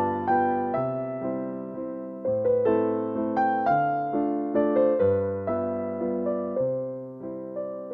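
Background piano music: a gentle melody of single struck notes, each fading away, over lower bass notes.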